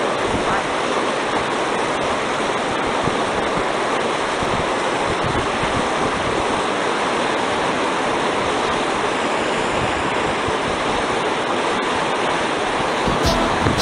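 Shallow stream running over a stony bed, a steady rush of water. Music with a beat comes in near the end.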